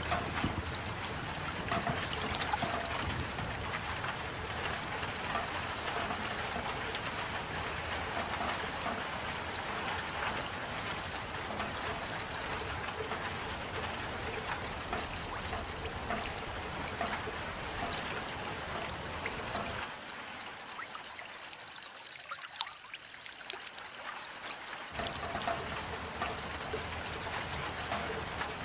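Steady rain falling, an even hiss of many drops. About twenty seconds in, the deeper part of the sound drops away for a few seconds, then returns.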